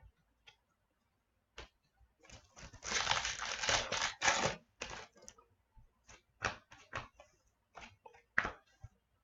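A pack of hockey trading cards being torn open, the wrapper crinkling for about two seconds, followed by a run of light clicks and snaps as the cards are handled.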